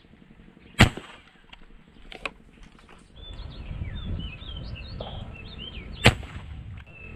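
Airgun shooting a fishing spear: two sharp shots about five seconds apart, with a smaller click between them.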